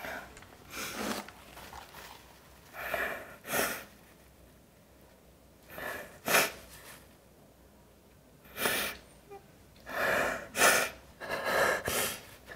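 A woman crying: short sobbing breaths and sniffles, coming closer together near the end.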